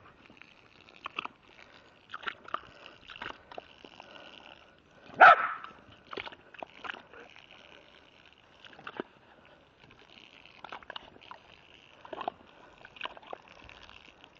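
Dog giving short barks, the loudest about five seconds in.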